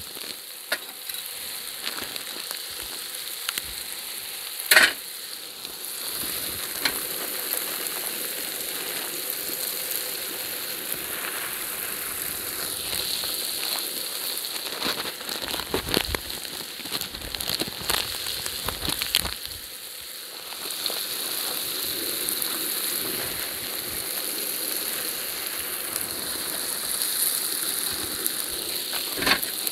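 Meat, vegetables and rice frying in a large plough-disc paella pan: a steady sizzle, as the rice is added and stirred in. There is a sharp knock about five seconds in and a run of knocks and scrapes near the middle.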